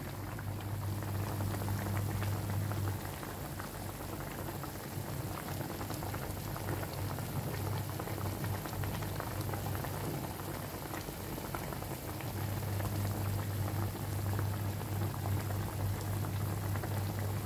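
Fish and midin fern soup boiling hard in a large metal wok, with a steady bubbling and fine crackle. A low hum runs underneath, stronger near the start and again near the end.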